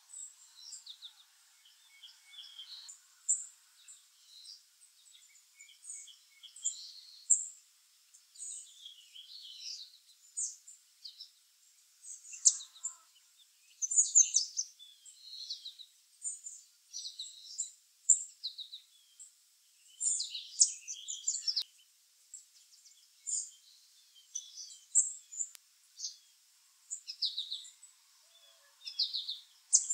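Small songbirds chirping and twittering: a near-continuous run of short, high calls, some in quick strings.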